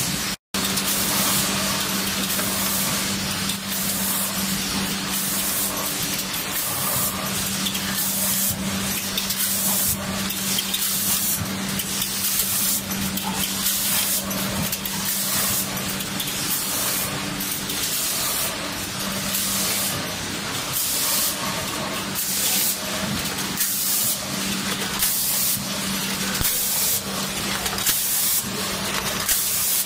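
Automatic bag-packing machinery running: a steady hum under a constant hiss, with sharper hiss pulses about once a second as the machine cycles.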